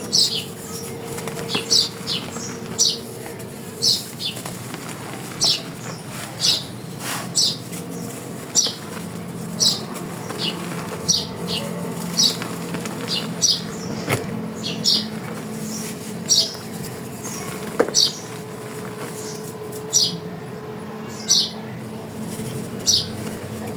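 Dry pressed chalk pieces being crushed and crumbled, with short, crisp crunches coming about once a second over a faint steady hum.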